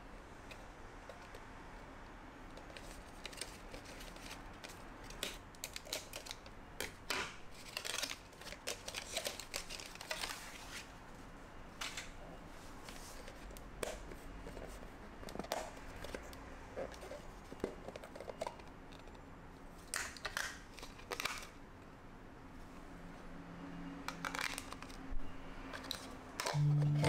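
Unboxing and handling a plastic microwave rice container: irregular rustling of its cardboard packaging and scattered light clicks and taps of hard plastic as the bowl is turned over and its lid lifted off.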